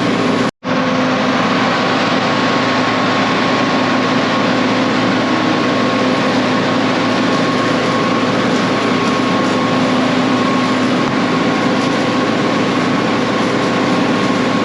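Engine of a piece of farm machinery, likely a skid steer, running steadily and loudly at constant speed with an even hum. A brief dropout to silence about half a second in.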